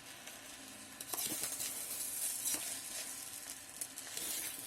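Sauced vermicelli sizzling in a hot electric kettle that has just been switched back on, the sizzle jumping louder about a second in, with a spoon stirring and clicking against the pot.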